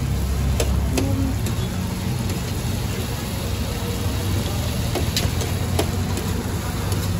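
Liver frying on a large iron tawa, with a metal spatula scraping and clicking against the plate now and then. A steady low engine-like hum runs underneath.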